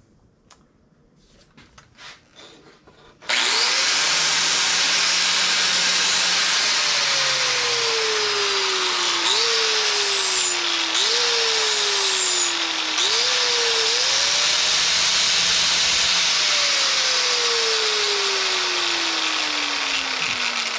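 An angle grinder starts up about three seconds in and grinds sheet steel. Its motor pitch sags as it bites and jumps back up several times, then drops slowly near the end under steady load.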